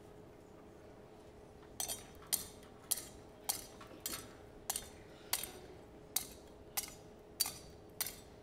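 Metal thurible (censer) swung on its chains, clinking sharply about every half second and ringing briefly after each stroke: a Gospel book being incensed. The clinks start about two seconds in.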